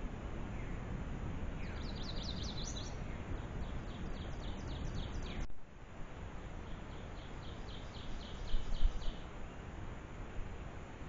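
A songbird singing runs of quick, repeated high notes, about four or five a second, in three bursts over steady outdoor background noise. The background drops suddenly about halfway through, and a brief low thump comes near the end.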